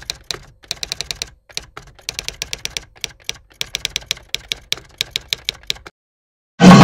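Typewriter typing sound effect: quick runs of key clicks with short pauses between them. The clicks stop near the end, and loud chenda drumming cuts in abruptly just before the end.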